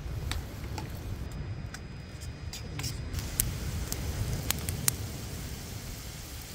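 Wood campfire crackling, with about half a dozen sharp, scattered pops over a steady low rumble.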